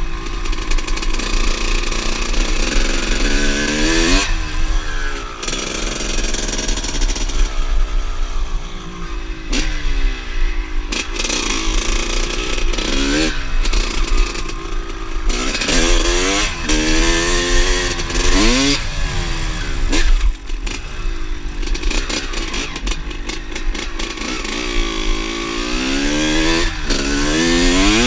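Two-stroke motorcycle engine revving hard, its pitch climbing and dropping back again and again as the throttle is worked.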